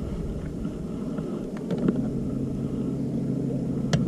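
A small boat's motor running with a steady low hum, with a few light clicks, one sharper click near the end.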